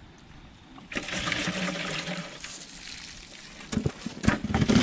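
Water pouring and trickling out of a bait trap as it is lifted from the water. Near the end come several sharp knocks and rattles as the trap is handled.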